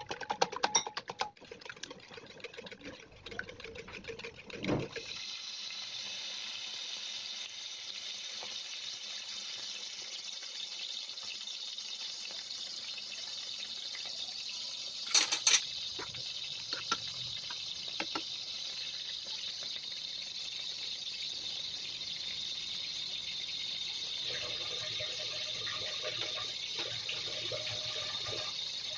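Chopped onions and red chillies sizzling steadily in hot oil in a frying pan. It opens with a wire whisk clicking rapidly against a bowl, and a couple of sharp clicks come about halfway through.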